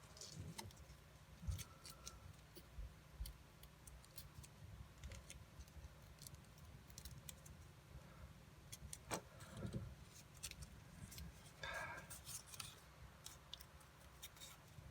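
Faint, scattered crinkles and clicks of a sheet of paper being folded and pressed into creases by hand, with a slightly louder rustle about nine seconds in and again about twelve seconds in.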